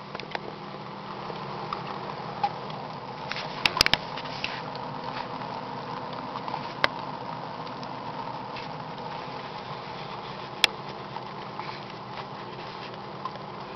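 Water pattering as it drips through a tray drilled with many small holes onto a humidifier pad, over a steady hum. A few sharper clicks stand out: several just before 4 seconds in, one near 7 seconds and one near 10.5 seconds.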